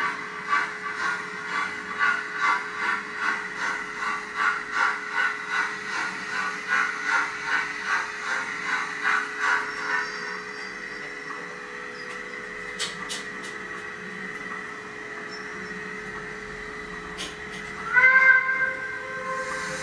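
HO-scale model steam locomotive's sound module chuffing steadily at about two beats a second as it moves slowly, falling silent about halfway through, over a steady hum. Near the end the locomotive gives one short, loud whistle blast.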